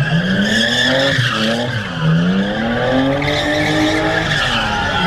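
Car engine revving hard, its pitch rising and falling several times, over tyres squealing and skidding as the car does a burnout or donuts.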